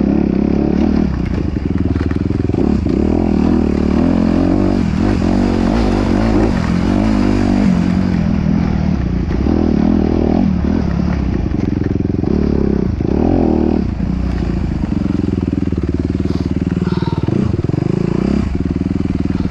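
Off-road motorcycle engine being ridden, its pitch rising and falling repeatedly as the rider works the throttle and shifts.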